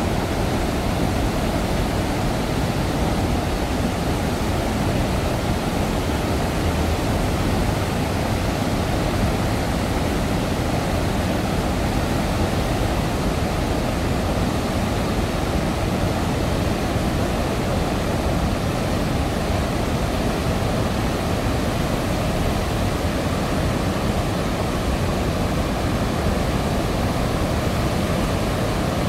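A huge volume of floodwater pouring from a dam's open spillway gates and churning below in a steady, unbroken roar, heaviest in the low end.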